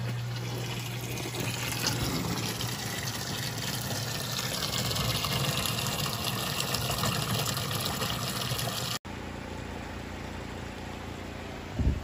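Water rushing and splashing in a hydroponic nutrient reservoir, a steady gushing with a low pump hum at first. About nine seconds in it cuts off abruptly to a quieter steady hiss.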